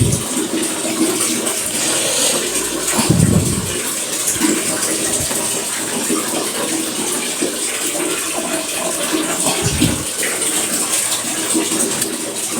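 Water running steadily, a continuous splashing hiss, with two dull low thumps about three and ten seconds in.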